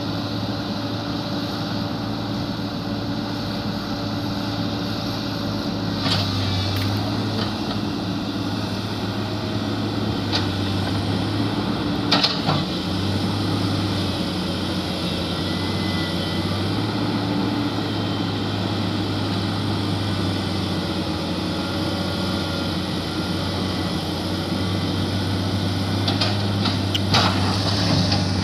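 Diesel engines of heavy construction machinery running steadily with a low hum, broken by a few sharp knocks.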